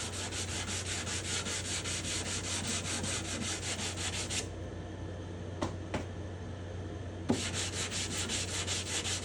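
Sandpaper (220-grit) rubbed by hand in quick, even back-and-forth strokes along the grain of a spruce guitar top, lifting off shellac. The strokes stop for about three seconds near the middle, with two light clicks, then start again.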